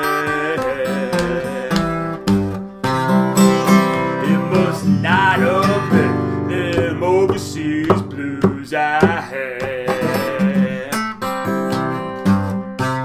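Steel-string acoustic guitar fingerpicked in Delta blues style: a steady repeating bass pattern under picked treble notes. A man's voice sings along at times.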